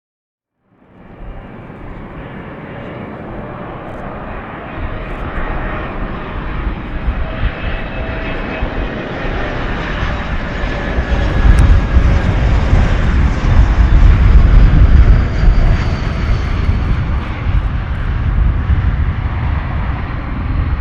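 Airliner engines, growing steadily louder as the plane nears and loudest from about eleven seconds in, with a deep rumble under a faint whine.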